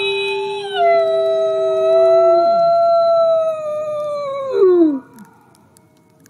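Gray wolf howling: long, steady howls that slide down in pitch at their ends and stop about five seconds in. Two pitches overlap for the first couple of seconds, the lower one falling away first.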